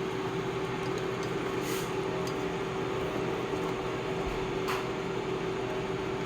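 Steady appliance hum, a constant tone over an even rushing noise, with a few faint light clicks.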